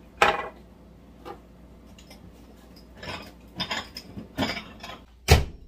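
A jar and other kitchen things being handled on a granite countertop: a sharp clack about a quarter second in, a run of small clicks and knocks a little past the middle, and a heavy thump near the end, the loudest of them.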